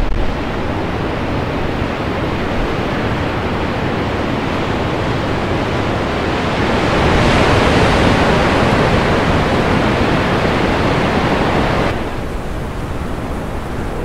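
Rough sea with waves breaking, a steady rushing surf that swells about seven seconds in and drops abruptly near the end.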